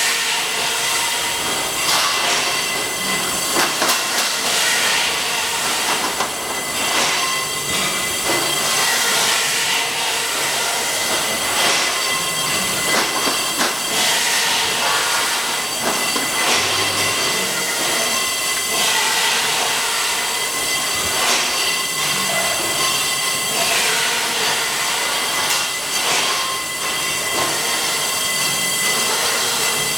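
Automatic circular-saw pipe cutter running and cutting metal pipes: a steady high whine and screech of the saw, broken by repeated metallic clanks as the pipes are fed and cut.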